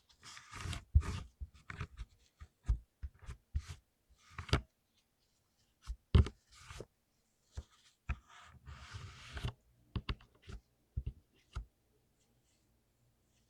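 Blue mechanical keyboard switches being worked on by hand for lubing: irregular sharp plastic clicks and taps mixed with short scraping and brushing sounds.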